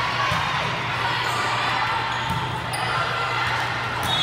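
Gym noise during an indoor volleyball rally: a steady hum of background chatter with a few short knocks of the ball and players' feet on the court.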